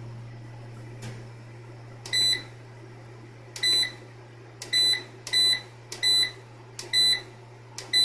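Solar inverter keypad beeping as its buttons are pressed to step through the display readings: seven short, high beeps at uneven intervals, each just after a small click, over a steady low electrical hum.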